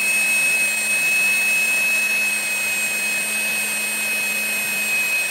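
Two shaft-coupled 775 brushed DC motors spinning at high speed, one driving the other as a generator, give a steady high-pitched whine over a hiss. The generator is loaded by a resistance wire, which it can heat red at these revs.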